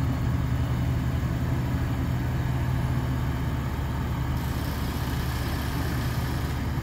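Diesel engine of a 115-ton mobile crane running steadily with a low hum while the crane lifts and swings a locomotive truck of about 30 tons.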